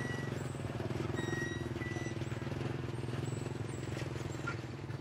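A steady low engine hum, like a motor running nearby, with a few faint, short high chirps over it.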